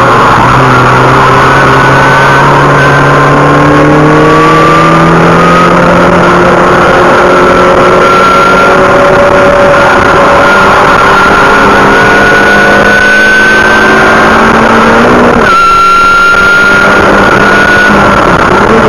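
Car engine heard from inside the cabin under hard acceleration on a race track, its revs climbing slowly in one long pull. About fifteen seconds in, the revs drop sharply with an upshift, then climb again.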